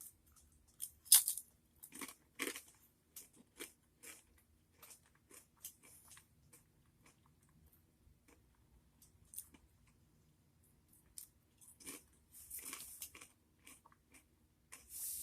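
A person biting and chewing a crunchy flavored pretzel: irregular crisp crunches, the loudest about a second in, with quieter chewing between.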